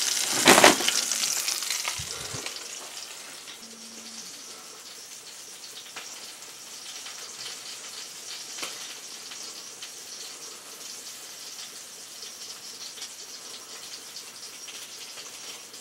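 Sausages and eggs sizzling in a frying pan, loudest over the first two seconds with a brief louder burst about half a second in, then a faint steady hiss.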